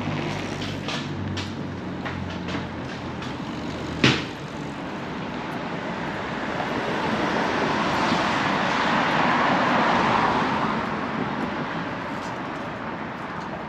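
City street traffic: an engine hum that dies away at the start, a single sharp knock about four seconds in, then a vehicle passing, its noise swelling and fading.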